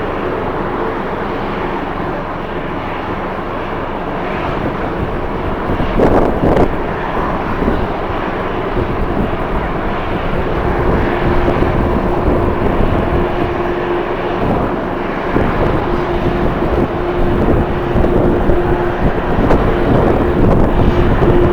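Jet airliner engines running, with a steady hum setting in about halfway through, over strong gusty wind buffeting the microphone.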